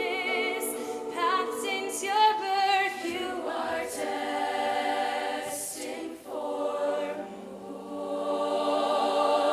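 Choir singing in harmony, holding chords with vibrato; the sound swells toward the end.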